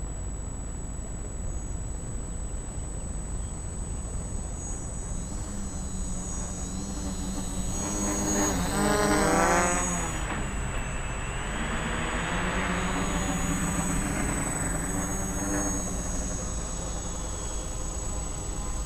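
Quadcopter's brushless motors and three-blade propellers buzzing as it flies in close and then away again. The pitch rises and falls, and it is loudest about eight to ten seconds in.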